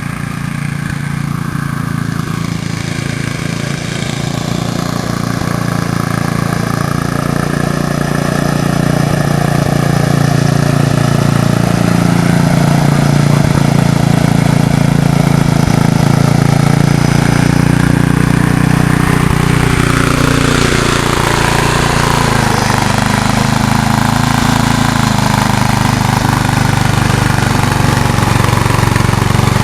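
A riding lawnmower's engine running steadily as it draws nearer, growing louder over the first ten seconds. About twenty seconds in, its note drops lower.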